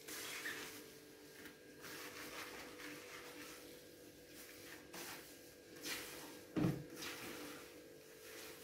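Faint rustling and a few knocks from a gloved hand mixing damp compost in a plastic bucket as water trickles in from a jug. The loudest knock comes about six and a half seconds in, over a steady low hum.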